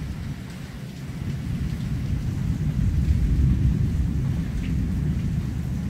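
Thunder rolling in a long low rumble that swells to its loudest about halfway through, over the steady hiss of rain.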